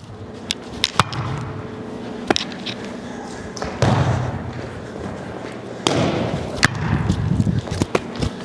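Volleyball rally: sharp smacks of the ball off forearms and hands every second or two, with sneakers scuffing and shuffling on a hard gym floor between contacts.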